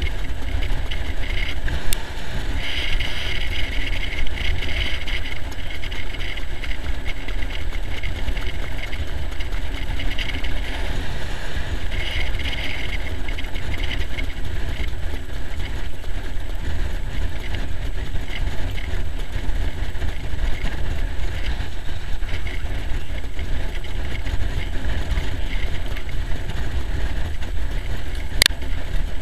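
Steady low rumble of a harness-racing sulky rolling over a dirt track behind a trotting horse, mixed with wind on the microphone. A higher rattly hiss comes and goes in the first half, and there is one brief sharp high sound near the end.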